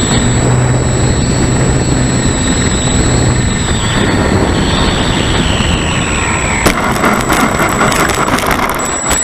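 Wind rushing over the onboard microphone of a Parkzone S.E.5a electric RC plane, with the motor's whine falling in pitch as it throttles back to land. About two-thirds of the way through comes a sharp knock as it touches down, then rattling and bumping as it rolls over the grass.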